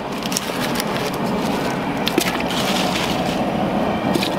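Steady rushing of a propane burner heating a stockpot of boil water, with a few soft splashes and knocks as halved onions and garlic heads are dropped into the seasoned water.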